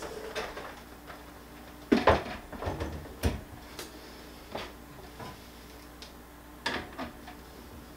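Computer tower case being handled and laid on its side on a desk: a cluster of loud clunks and knocks about two seconds in, another about a second later, then scattered lighter knocks.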